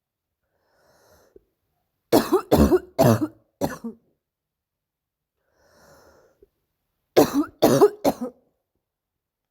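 A girl's harsh, barking seal-like cough: two fits of several quick coughs each, about five seconds apart, with faint breaths between.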